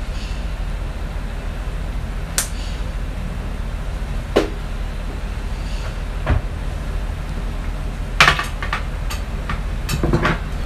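Small glass spice jars and their lids clicking and knocking against each other and the counter, a handful of separate knocks with a quick cluster of clicks about eight seconds in. Under them runs a steady low rumble.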